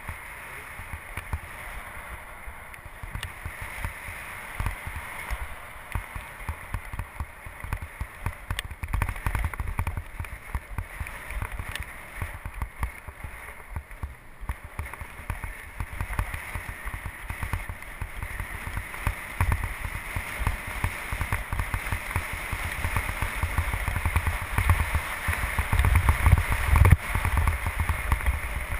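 Wind buffeting the microphone of a camera on a moving bicycle, with a steady hiss of tyres rolling on asphalt; the low gusts grow stronger near the end.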